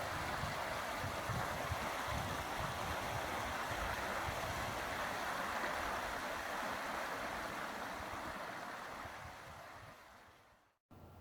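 Creek in spring flood with snowmelt, a steady rush of fast-flowing water, with wind buffeting the microphone. The rush fades over the last few seconds and cuts off abruptly just before the end.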